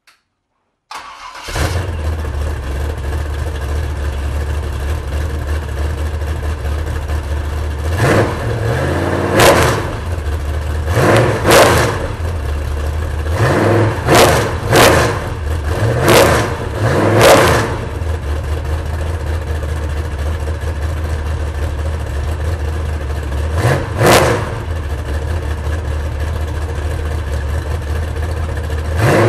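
A freshly rebuilt 468 cubic-inch Chevrolet big-block V8 on an engine stand, exhausting through two short mufflers, fires up almost at once about a second in and settles into a steady idle. It is blipped with the throttle in a string of short revs through the middle, and once more near the end.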